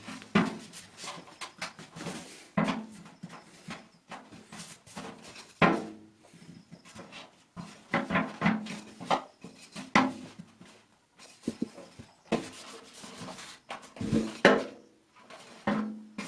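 Irregular knocks and bumps from a hollow metal trash can being handled and turned over, with a wooden piece tapped against it; the louder knocks ring briefly in the can's body.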